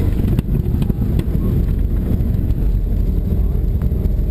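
Airliner cabin noise: a loud, steady low rumble with no distinct events.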